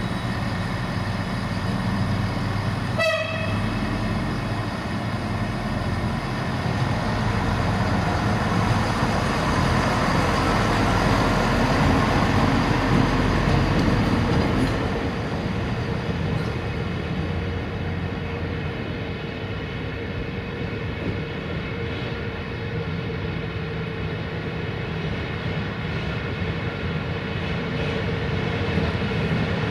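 060-EA electric locomotive train approaching: one short horn toot about three seconds in, then a steady rumble of the train on the rails that swells as it draws near and eases off after the middle.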